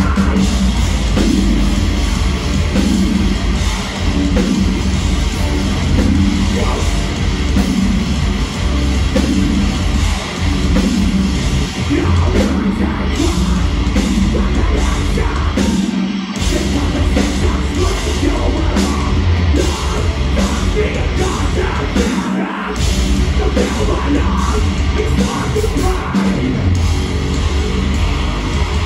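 Metalcore band playing live at full volume: heavy distorted guitars, bass and pounding drums with yelled vocals. The band hits hard right at the start, and the music stops short twice, briefly, about halfway and two-thirds through.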